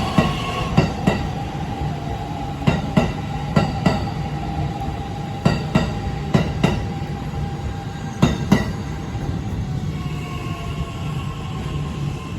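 Kintetsu 8A series electric train running past, its wheels clacking over rail joints in pairs again and again, over a steady rumble and a steady whine.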